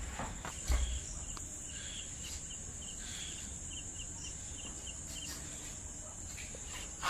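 Crickets trilling steadily at night, with short high chirps repeating in small groups. A brief low thump comes just under a second in.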